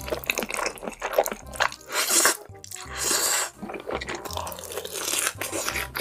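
Close-miked mukbang eating: loud wet slurping and chewing of sauce-coated jajangmyeon black bean noodles. About four seconds in comes a bite into a battered fried piece.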